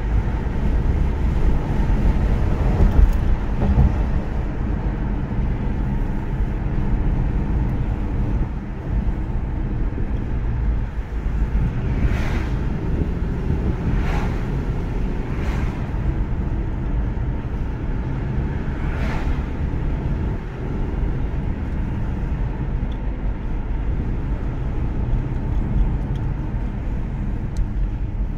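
Car driving at road speed, heard from inside the cabin: a steady low rumble of tyre and engine noise, with a few brief whooshes around the middle.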